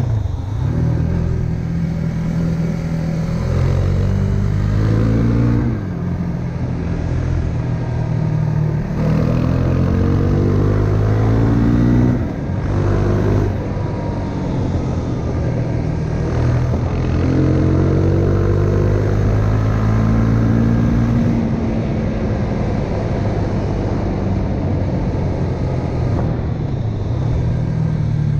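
Husqvarna Svartpilen 401's single-cylinder engine under way, its pitch climbing several times as it accelerates and dropping back between climbs, as with throttle changes and gear shifts.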